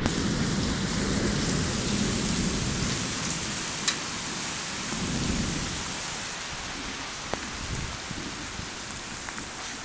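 Heavy rain pouring steadily onto a lawn and a flooded street, an even hiss that grows a little quieter toward the end. A low rumble sits under it in the first couple of seconds and again about five seconds in, and there is one sharp tick about four seconds in.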